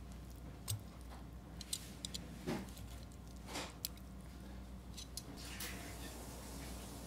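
A metal spoon breaking apart grilled hairtail on a plate: a few sharp clicks and two or three short soft scrapes, spread over the few seconds.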